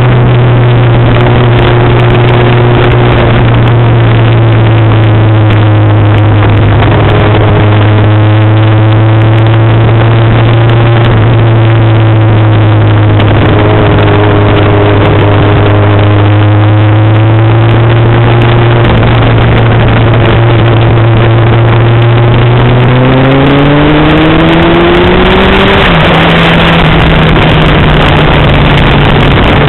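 Engine running loud at a steady pitch over heavy rushing noise, then rising smoothly about 23 seconds in and holding at a higher pitch.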